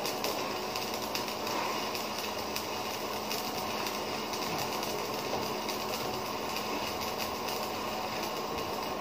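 Electric arc welding on a steel C-channel: the arc gives a steady, dense crackling sizzle without a break.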